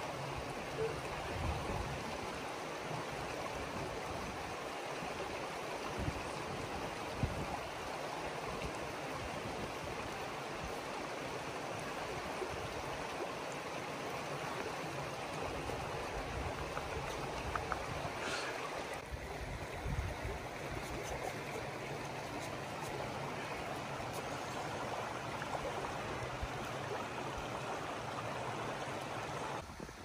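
Creek water flowing and splashing steadily over rock in a sandstone canyon, with a few faint low thumps.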